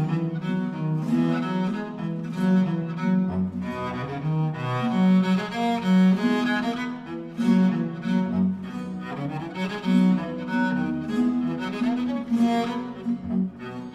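Background classical music: a cello concerto, the solo cello playing sustained bowed notes over orchestral strings.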